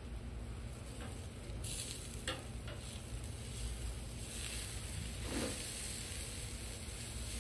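Tri-tip steak sizzling on a hot charcoal grill grate as it is turned with metal tongs. The sizzle swells past the middle as the meat is laid back down on the grate, with a few light clicks of the tongs early on.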